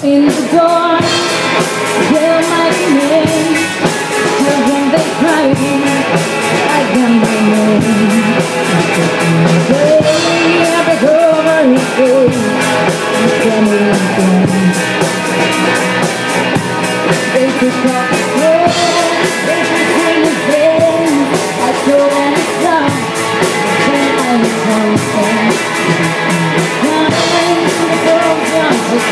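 Rock band playing live: a woman singing over electric guitar, bass guitar and a drum kit.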